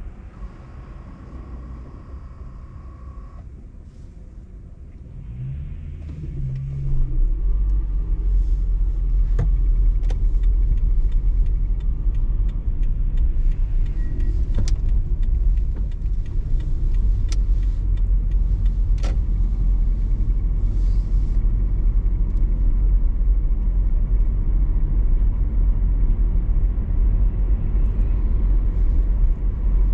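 Car driving: quieter for the first few seconds, then the engine note rises as it pulls away, and a loud, steady low rumble of road and wind noise sets in. Occasional sharp clicks and knocks through the middle.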